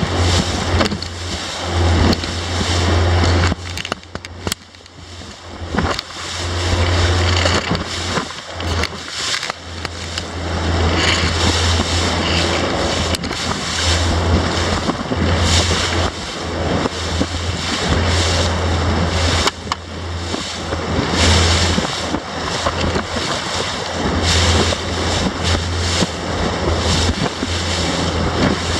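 Wind buffeting the microphone and water rushing as a Rib Grand S470 rigid inflatable boat runs through choppy waves. A deep rumble cuts in and out every second or two, and there are many sudden knocks and gusts.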